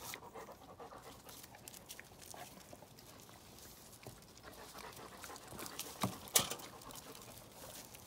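A dog panting close by, with one sharp knock about six seconds in.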